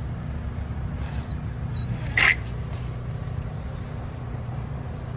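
A single sharp plastic click about two seconds in as the hose water timer is switched, over a steady low rumble.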